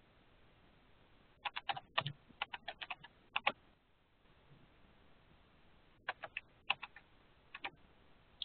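Computer keyboard typing in two short runs of keystrokes, separated by a pause of about two and a half seconds.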